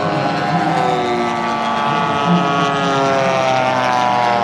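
Propeller engines of two radio-controlled WWII scale model warplanes droning as they fly past low. Their pitch slowly falls through the pass.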